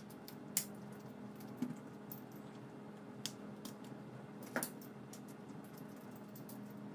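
Scattered light clicks and taps at an uneven pace, four of them louder, over a faint steady hum: small camera parts and tools being handled at the repair bench.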